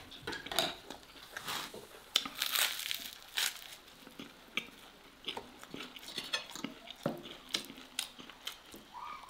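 Close-miked eating sounds: a crusty bread roll being torn apart and chewed, with the odd clink of a fork on a plate, heard as a string of short crackles and clicks.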